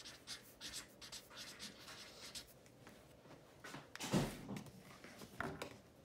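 Felt-tip marker scratching across chart paper in many short, quick strokes as words are written. There is a louder thump about four seconds in and another near the end.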